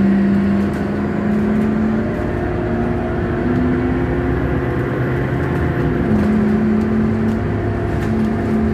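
Scania K230UB city bus heard from inside the cabin while driving: its five-cylinder diesel engine and ZF automatic gearbox hum and whine steadily. The pitch steps up and down several times as the bus changes speed and gear.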